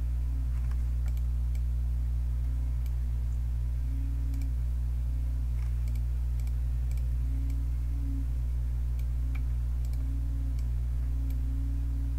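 Computer mouse clicking, short sharp clicks about once a second at irregular intervals, over a steady low electrical hum.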